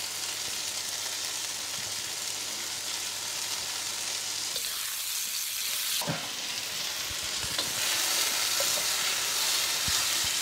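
Sliced onions, bell peppers and shredded red cabbage sizzling in a hot wok, stirred with a spatula, with a few short knocks of the spatula against the pan. The sizzle grows a little louder in the second half.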